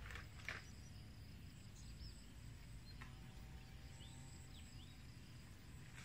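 Quiet rural ambience, close to silence: a faint low rumble, a brief rustle about half a second in, and a few faint high bird chirps around four seconds in.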